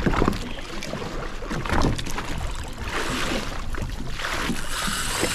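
Wind and choppy seawater washing and splashing around a jet ski at sea, a steady rushing noise, with a knock at the very start.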